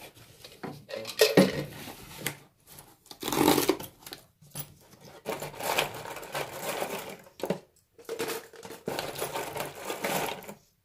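Plastic wall-plug dowels rattling in irregular bursts as handfuls are scooped from a plastic parts box and dropped into a cut-off plastic bottle.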